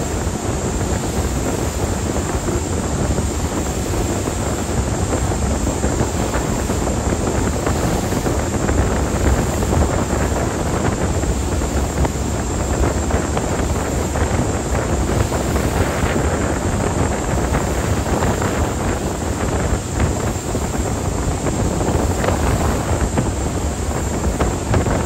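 Wind buffeting the microphone aboard a moving ferry, over the steady rush of the ferry's engines and water.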